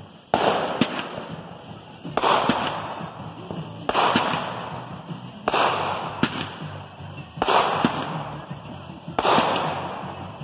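Aerial fireworks bursting one after another, six sharp bangs about two seconds apart, each trailing off over a second or so.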